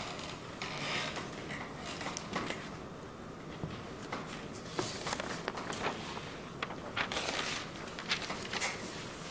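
Chalk writing on a blackboard: a string of short taps and scratchy strokes, busiest in the second half.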